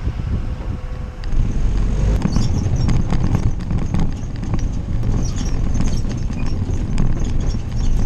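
Willys CJ-2A Jeep's four-cylinder flathead engine running as the Jeep drives over rough dirt. From about a second in, the low rumble gets louder and is joined by constant irregular clattering and knocking from the bouncing body and loose parts.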